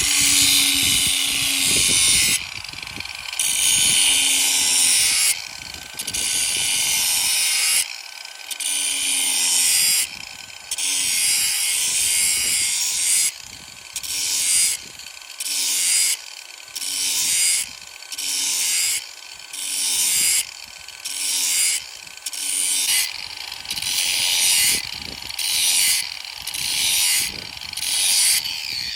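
Ryobi 18V ONE+ cordless angle grinder with a flat disc grinding the cutting edges of a sickle mower knife, sharpening it. Long grinding passes for the first several seconds, then short passes of about a second each in steady succession, the motor whining on in the gaps between them.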